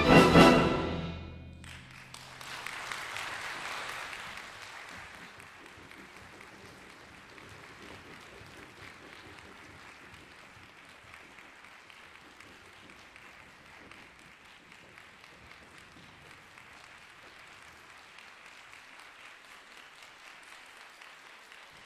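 Youth symphony orchestra of strings, winds, brass and percussion sounding its final chord, which cuts off sharply about a second and a half in. Audience applause follows at once, louder for the first couple of seconds, then steady and faint.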